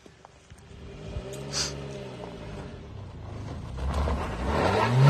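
An off-road SUV's engine revs as it pulls away up a steep dirt slope. It grows louder, then near the end the revs climb sharply while the tyres spin and scrabble on the loose ground.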